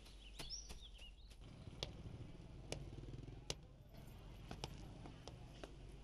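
Faint outdoor ambience: a few short bird chirps near the start, then sharp taps about once a second over a low steady hum.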